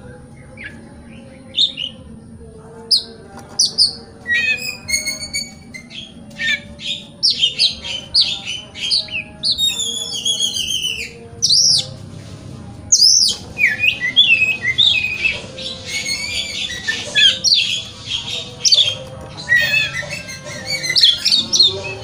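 Oriental magpie-robin singing a long, varied song of whistled notes, quick rising and falling trills and harsh squawky notes, broken by a couple of short pauses.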